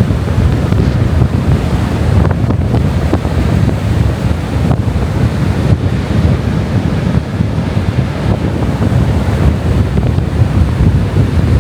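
Strong gale-force wind buffeting the microphone: a loud, steady low rumble with gusty surges.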